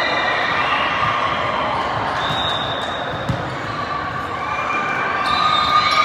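Din of a busy indoor volleyball hall: many voices and shouts from players and spectators across several courts, with volleyballs being struck and bouncing. One sharp thud stands out a little over three seconds in.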